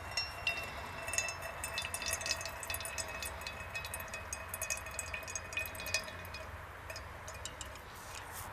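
Water from a shallow fen pool being scooped into a container: a rapid patter of small drips and splashes that thins out near the end.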